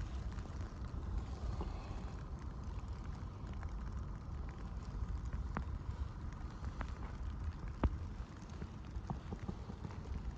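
Footsteps crunching through fresh snow during a blizzard, with a steady low rumble of wind on the microphone and a few sharp crackles.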